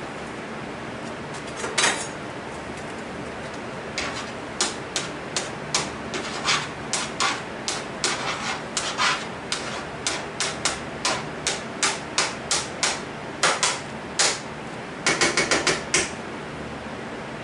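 A utensil tapping and knocking against a skillet, a couple of times a second, as butter is broken up in the pan, with a quick run of taps near the end. A steady hum runs underneath.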